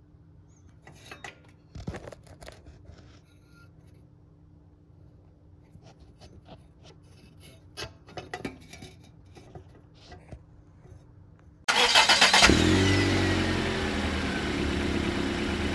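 Scattered light clicks and knocks of tools and handling, then near the end a Chevrolet 4.8 L V8 cranks briefly on the starter, fires and keeps running, settling into a steady idle.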